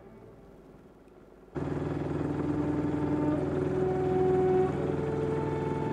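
Orchestral music fades out, then about a second and a half in a sailboat's motor starts up abruptly and runs steadily with a low hum while it pushes the boat along, churning the water at the stern.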